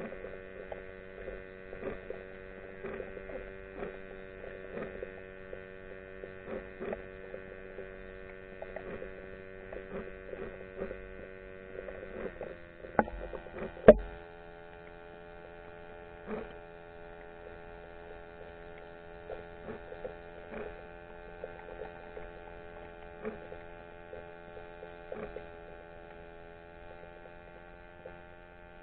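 Underwater recording: a steady mechanical hum made up of several tones, with scattered faint clicks throughout. Two sharp knocks come near the middle, the second the loudest, and after them the pitch pattern of the hum changes.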